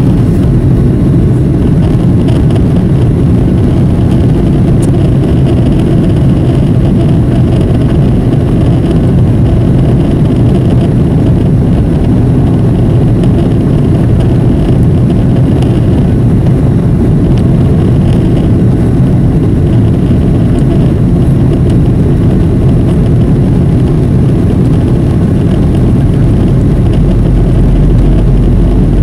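Boeing 737 cabin noise in flight from a window seat over the wing: a loud, steady rumble and rush of the jet engines and airflow. A deeper low rumble comes in near the end.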